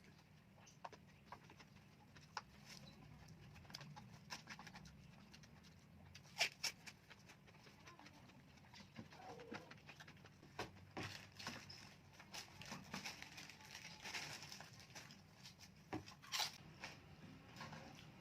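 Eating sounds close to the microphone: soft chewing and mouth smacks with scattered small clicks, sharpest twice about six and a half seconds in and again around sixteen seconds.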